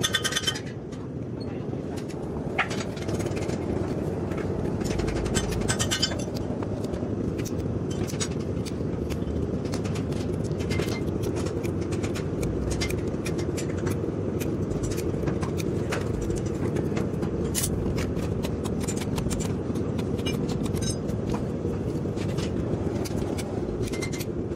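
Hoof trimming on a horse's overgrown hoof: hoof knife and nippers scraping and clipping the horn in many short sharp clicks and scrapes, over a steady low rumble.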